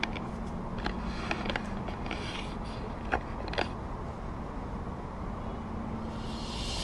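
Steady low outdoor rumble with a few short, faint clicks scattered through it.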